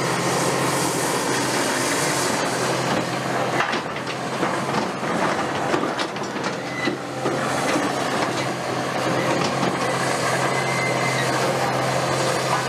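Caterpillar 330F hydraulic excavator's six-cylinder diesel engine running steadily under working load, with hydraulic hiss as the arm swings and lowers the concrete pulverizer. A few sharp knocks and cracks from the attachment on the concrete rubble come in the middle.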